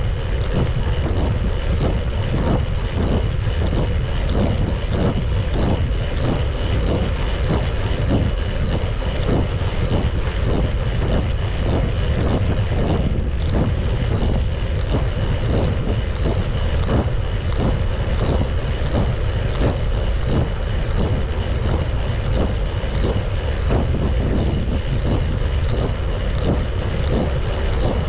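Motorcycle engine running steadily at cruising speed, with wind rushing over the microphone.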